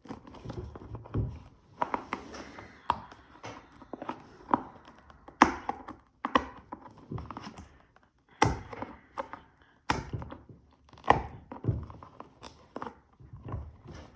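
Cardboard product box being opened by hand: irregular sharp knocks and thumps with short scrapes and tearing of the packaging.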